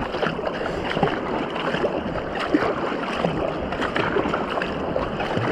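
Flowing river water with irregular splashing around a canoe being paddled down a river channel.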